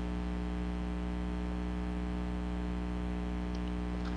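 Steady low electrical mains hum with a faint hiss underneath.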